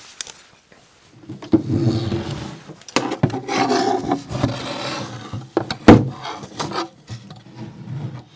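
A wooden drawer box handled and set onto metal drawer slides: scraping and rubbing of wood, with a few sharp knocks, the loudest about six seconds in.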